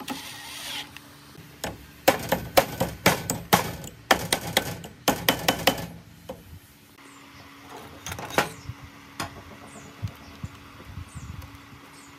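A cordless impact driver whirs briefly, then comes a run of sharp, irregular knocks lasting about four seconds: a mallet tapping on the cut-off saw's electric motor housing during reassembly. A shorter clatter follows a couple of seconds later, with faint bird chirps.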